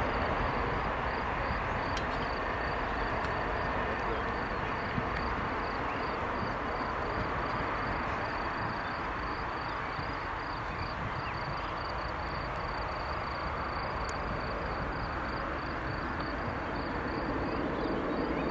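Embraer 190 jet's two turbofan engines at takeoff thrust, a steady roar as the airliner lifts off and climbs away. Insects chirp in a fast, even pulse underneath.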